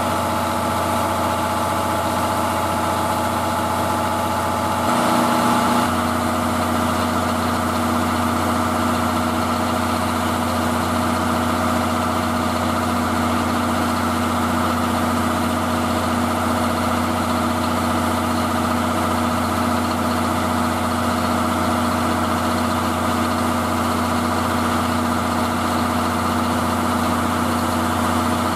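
Standing D51 steam locomotive under steam, giving a steady mechanical hum and hiss with several steady tones. A short, louder hiss comes about five seconds in.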